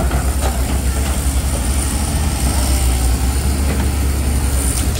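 A heavy engine running steadily at low revs, a deep continuous rumble.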